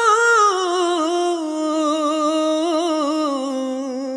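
A solo voice holding one long drawn-out note of a Hindi love song, wavering with vibrato and sliding slowly down in pitch, with little or no accompaniment. It grows gradually softer toward the end.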